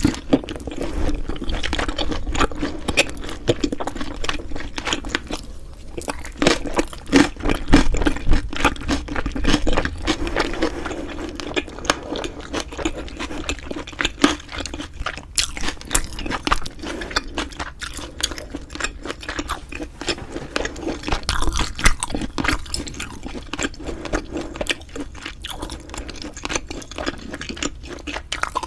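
Close-miked chewing and mouth sounds of someone eating, a dense run of small wet clicks and crackles that goes on throughout.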